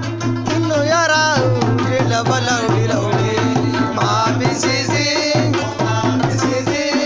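Folk music with a dholak and a tabla played by hand in a quick, steady rhythm, and a voice singing a gliding melody over the drums.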